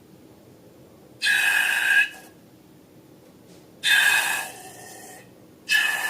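Air escaping from a balloon in three short bursts, each under a second: a hiss with a squeaky, whistling tone.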